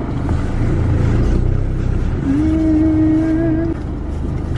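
Van engine and road noise heard from inside the cabin: a steady low rumble. Near the middle, a steady pitched tone is held for about a second and a half.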